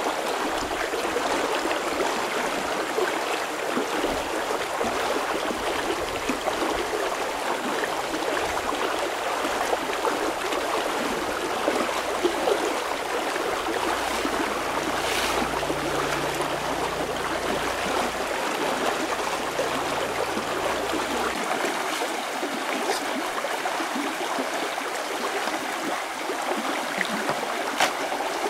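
Shallow rocky stream rushing steadily over stones, with a few faint brief clicks.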